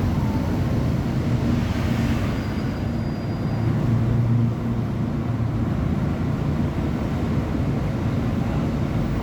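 Diesel engine of a Mercedes-Benz O500UA BlueTec 6 articulated bus running with a steady low drone. It swells and then eases slightly about four and a half seconds in.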